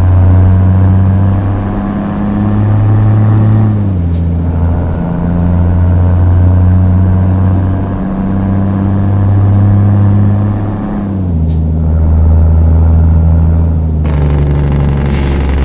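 International truck diesel engine running loud and steady, with a thin high whistle above it. The engine note and the whistle sink briefly about four seconds in and again about eleven seconds in.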